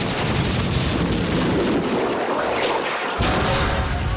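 Explosions in a war film's sound mix: a sustained, loud blast, with a fresh one starting sharply about three seconds in.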